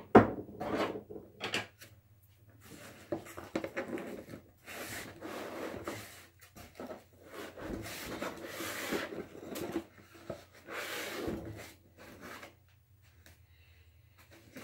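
Foam packing blocks rubbing and creaking against the cardboard and the printer frame as they are gripped and shifted, in several bouts. A sharp knock right at the start is the loudest sound.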